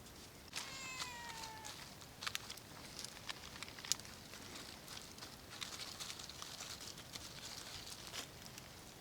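A domestic cat meows once, a drawn-out call whose pitch slowly falls, about half a second in, followed by scattered sharp clicks and cracks.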